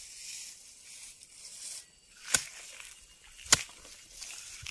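A long-handled tool chopping into the base of a lemongrass clump: two sharp strikes about a second apart, near the middle and toward the end. Before them there is a rustle of grass leaves.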